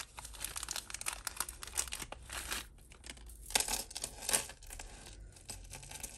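Small clear plastic jewellery bag crinkling and rustling in the hands as it is opened and a beaded chain necklace is drawn out of it, in irregular bursts with louder spells about two seconds in and again around four seconds in.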